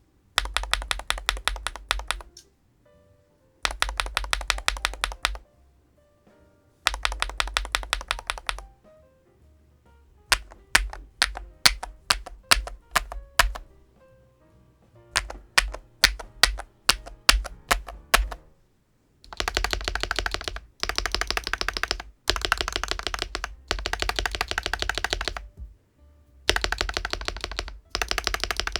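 Typing on a GLITTER65 HE Pro 65% keyboard with magnetic Hall-effect switches. It starts with three short bursts of fast typing, then slower separate key strokes through the middle, then long runs of fast typing to the end.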